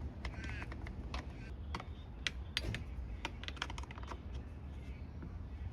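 Irregular clicks and taps of plastic air-intake parts and connectors being handled and fitted by hand, over a steady low hum.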